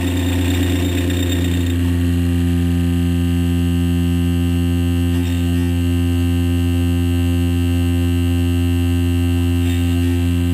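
Solar-heated diaphragm Stirling-cycle thermo-mechanical generator running with a loud, steady hum rich in overtones. Its vibration is picked up by the satellite dish it is mounted on and comes out as a drumming, a dish resonance that upsets the generator's tuning. About two seconds in, the sound settles into a cleaner tone.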